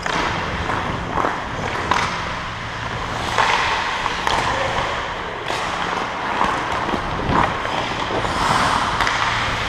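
Ice hockey play heard from a helmet-mounted camera: skate blades scraping and carving on the ice, with frequent sharp clacks of sticks and puck. A low steady hum lies underneath.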